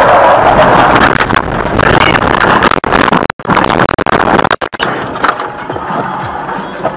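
Loud, rough road and engine noise of a moving car picked up by a dash camera, broken by a few abrupt dropouts to silence around the middle, then running steadier and quieter.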